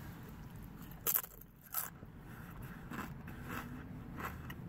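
A tortilla chip loaded with guacamole being bitten: two loud crisp crunches about a second in, then fainter crunching as it is chewed.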